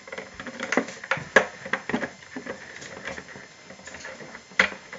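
Irregular hard plastic clicks and taps from a toy fridge playset being handled as a loose piece is slid back into its bottom, with louder clicks about a second and a half in and again near the end.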